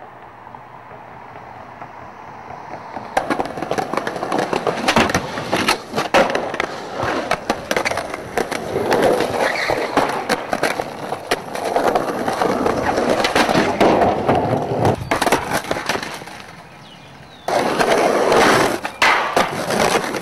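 Skateboard wheels rolling on concrete with many sharp clacks of the board hitting the ground during tricks. It starts faint and builds for about three seconds, then dips briefly near the end before picking up again.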